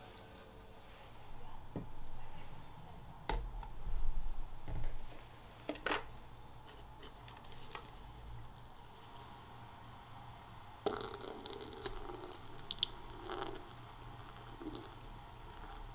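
Soft clunks and clicks of a dripper and glass server being handled and set on a coffee scale, the loudest about four seconds in. Then, from about eleven seconds in, a quiet trickle and patter of hot water poured from a gooseneck kettle onto an empty Kalita wave paper filter to rinse it.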